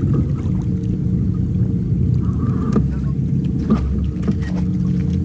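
Bass boat's motor running at low speed, a steady low rumble and hum as the boat eases toward the shore.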